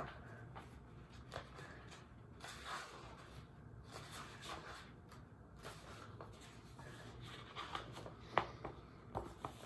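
Faint rustling and soft taps of a picture book's pages being flipped through and handled.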